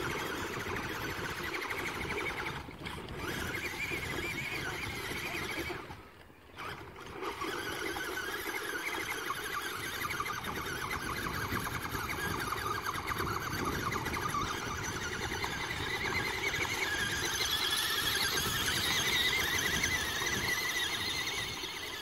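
Small electric motor and plastic gearbox of a remote-control 4x4 toy truck whining as it drives and climbs. The whine wavers in pitch, cuts out briefly about six seconds in, then picks up again.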